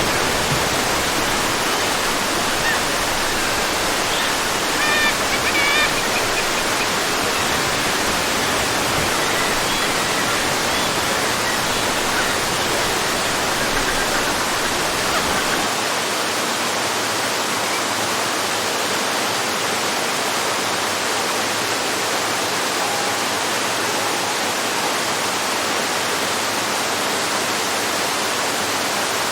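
Small garden waterfall flowing, a steady rush of falling water, with a few faint bird chirps about five seconds in.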